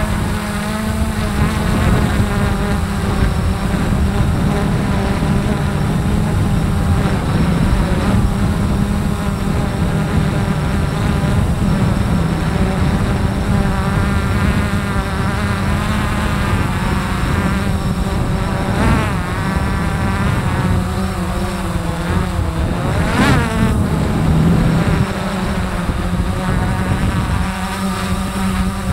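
Multirotor drone motors and propellers buzzing steadily in flight, the pitch wavering as the throttle changes. Late on there is one quick rise and fall in pitch.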